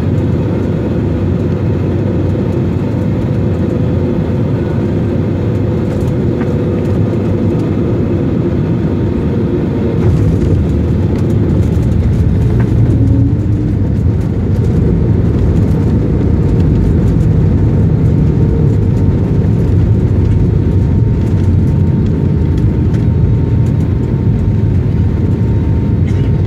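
Jet airliner landing, heard from inside the cabin: steady engine and airflow noise with a faint steady whine. About ten seconds in it grows louder with a deeper rumble as the plane rolls along the runway.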